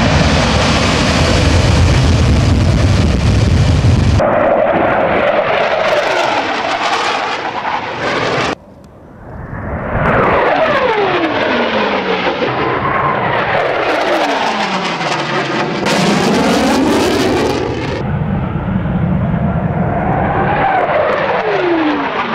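A Hornet-type twin-engine fighter jet at full power on its takeoff run, a loud low rumble with hiss. It is then heard flying past overhead, its engine whine falling in pitch each time it goes by. The sound breaks off abruptly twice, near four seconds and before nine.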